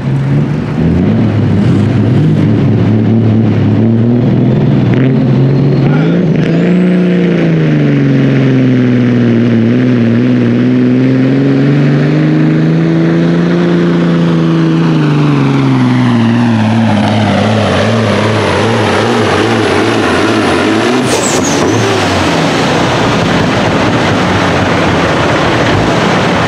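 Street semi truck's diesel engine running hard under load, pulling a sled: the engine note surges up, dips and climbs again, then drops away with a falling whistle as the pull ends. A brief hiss comes near the end.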